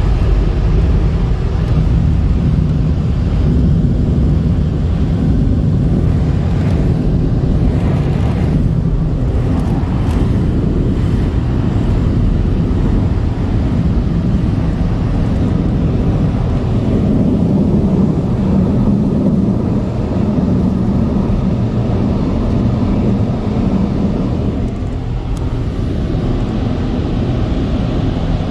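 Car wash dryer blowers, a Superior Hurricane dryer system refitted with Dryer Pros blowers with silencer hats, running loudly as a steady rush of air over a low motor hum, heard from inside the car.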